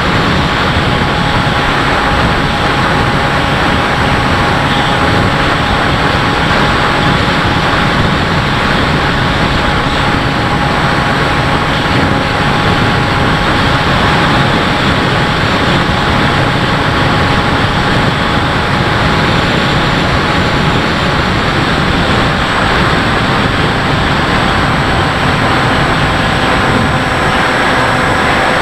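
Steady wind rush and the even whine of a Bixler RC plane's electric motor and propeller at constant throttle, heard from a camera mounted on the plane in flight.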